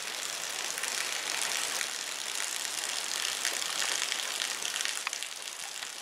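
Steady rain falling on wet, puddled ground: a dense, even hiss flecked with many small drop ticks.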